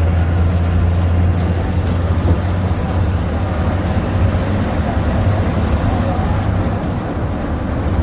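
MWM MaxxForce 7.12 TCE six-cylinder inline turbo-diesel engine of an Agrale MA 17.0 bus running steadily, a deep drone holding an even pitch, with faint clicks and rattles over it.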